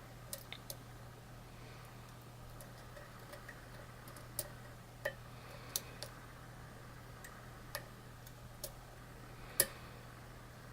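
Lock picking: a metal pick and tension wrench clicking irregularly inside a lock cylinder as pins are lifted and set, with one louder click near the end.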